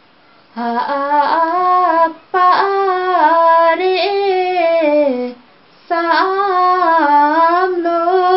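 A woman singing a Limbu hakpare samlo solo without accompaniment, in three long phrases whose pitch wavers and bends, each phrase falling away at its end, with short breaths between them.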